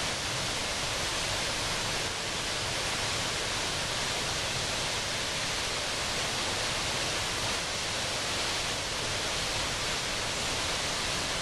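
Floodwater pouring over a wall and cascading downhill as a steady, unbroken rush of white water.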